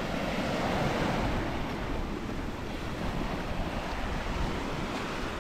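Ocean surf: small waves breaking and washing in over a sandy shore, a steady rushing that swells and eases.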